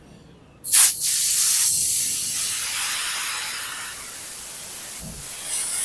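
A hissing jet of compressed air from a hose-fed air gun. It starts abruptly under a second in, eases off gradually, and swells again briefly near the end.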